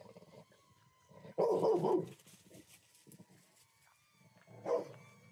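A dog barking twice, guarding its yard. The first bark, about a second and a half in, is longer and louder; the second, shorter one comes near the end.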